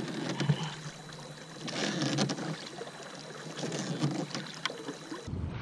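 Wooden oars rowing a small dinghy: the blades dip and splash in a stroke about every two seconds, with light sharp knocks along with each stroke. Near the end the sound changes abruptly to a steady low wind rumble.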